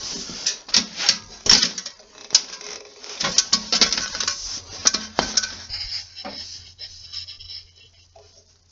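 Small metal parts clicking and knocking in quick irregular taps, thickest in the first six seconds and sparser after, as the screw-in holder for the Zündfix ignition cartridge is taken out of the engine's cylinder head.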